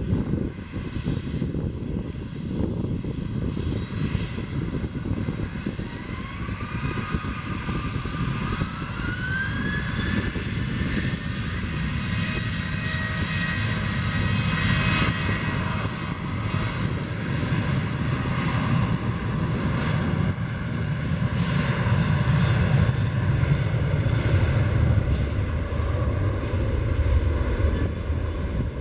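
Boeing 737's CFM56 turbofan engines spooling up for the takeoff roll. A whine rises in pitch several seconds in, then holds steady over a deep rumble that grows louder near the end.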